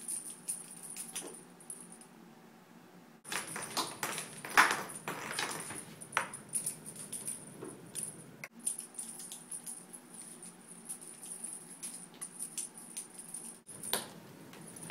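Light clatter, rattling and a faint high jingle from cats batting and chasing their toys, with scattered taps. The sound breaks off abruptly a few times.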